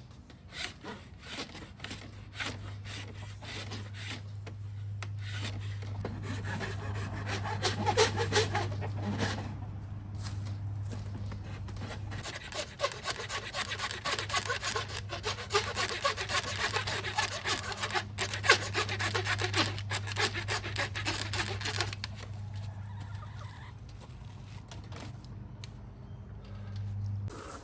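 Fast rasping strokes worked back and forth on wood, loudest through the middle of the stretch, over a steady low hum.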